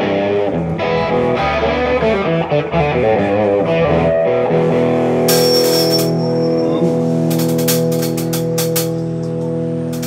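Electric guitar and bass playing loose sound-check notes and chords, then a chord left ringing steadily through the amp. Near the end a quick run of sharp taps comes in over the held chord.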